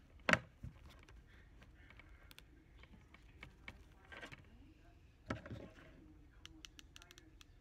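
Small objects being handled and set down on a wooden tabletop: a few knocks and taps, the loudest just after the start and another about five seconds in, then a run of quick light clicks near the end.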